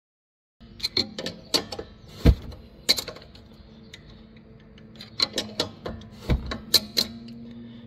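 Irregular metallic clicks and taps as a coilover's threaded spring-seat collar is worked by hand against a thin flat metal tool held in the gap to set the preload. The clicks start about half a second in, with a faint steady hum underneath.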